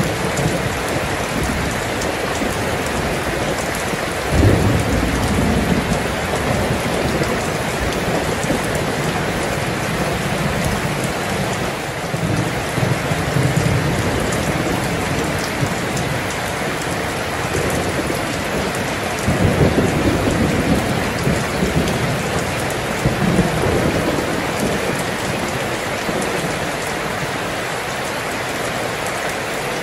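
Steady heavy rain pattering on water and ground, with thunder rolling through it: a sudden clap about four seconds in, then slower rumbles around the middle and again about two-thirds of the way through.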